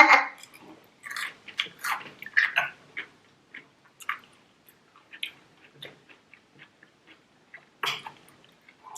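A person chewing and eating food close to the microphone, irregular short wet mouth sounds and bites, busiest in the first few seconds and again near the end.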